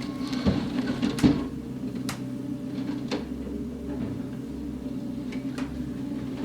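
A heavy demolition machine's engine running steadily, with scattered sharp knocks and cracks of debris and branches being handled, most of them in the first three seconds.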